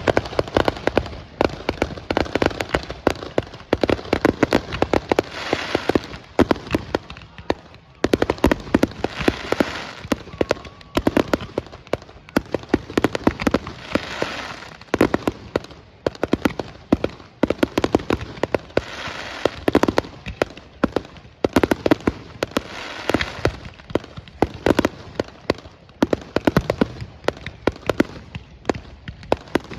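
Fireworks display going off: a dense, continuous run of sharp bangs, with swells of crackling every few seconds.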